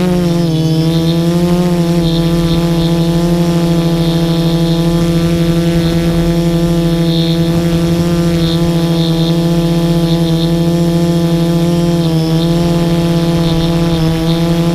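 Small multirotor drone's motors and propellers buzzing at a steady pitch in flight, with a slight dip in pitch about half a second in and a small wobble near the end.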